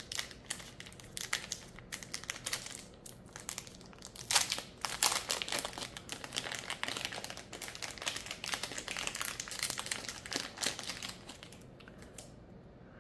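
Clear plastic wrapping crinkling and rustling in quick irregular crackles as it is peeled off a small action-camera accessory by hand, dying away near the end.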